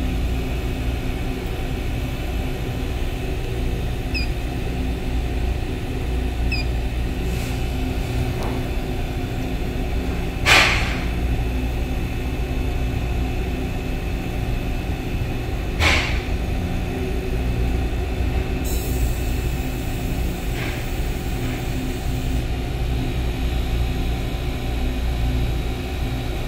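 Steady low hum of a small R290 refrigeration unit running, compressor and condenser fan on, while it is being charged. Two sharp knocks cut through it about ten and sixteen seconds in.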